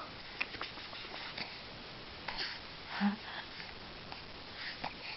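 A two-month-old baby's snuffly breathing and small sniffs, with a brief low vocal sound about three seconds in.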